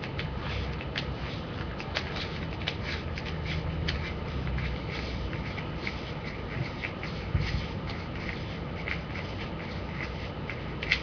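Irregular light clicks and rustling from hands handling a small plastic object, over a steady low room hum.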